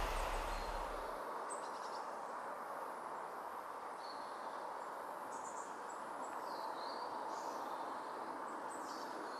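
Quiet canal-side ambience: a steady soft hiss with scattered short, high chirps of small birds, some of them gliding in pitch. A low rumble fades out about a second in.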